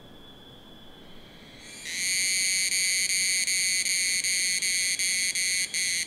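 Tanna evening cicada calling loud and close: a high, steady ringing song that sets in about two seconds in. It runs with brief, regular breaks and a short gap near the end, then cuts off suddenly. Before it, a fainter, steady high whine of other cicadas.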